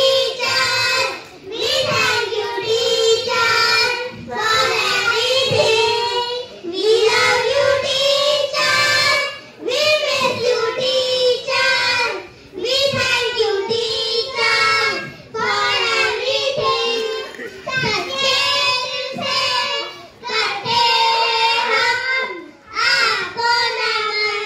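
A group of young children singing a song together, in sung phrases of a few seconds with brief breaks between them.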